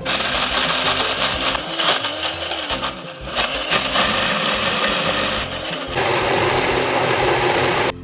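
Countertop blender with a glass jar running at full speed, grinding chilies, shallots and garlic with oil into a smooth spice paste. The motor noise dips briefly about three seconds in, changes tone about six seconds in and cuts off suddenly near the end.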